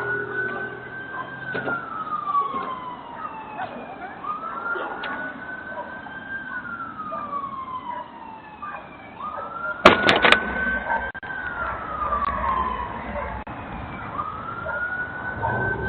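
Police car siren on a slow wail, each cycle rising quickly, holding, then sliding down, about every five seconds, thin and band-limited through a doorbell camera's microphone. About ten seconds in, a quick cluster of three or four sharp cracks stands out as the loudest sound.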